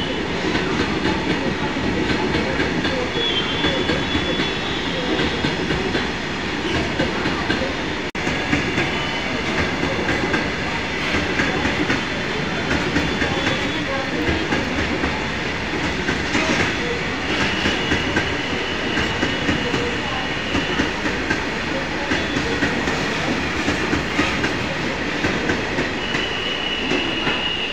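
Railway wagons rolling past at speed close by, the wheels clattering steadily over the rail joints, with a thin high wheel squeal now and then.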